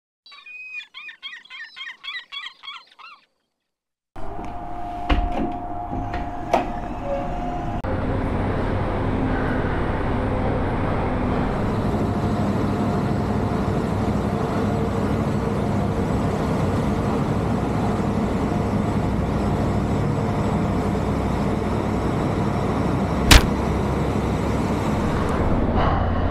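Steady, loud mechanical rumble and hum inside a ferry's enclosed vehicle deck, from ship machinery, ventilation and vehicles. A few knocks come early on, and one sharp bang near the end. A brief high chirping effect plays for the first few seconds.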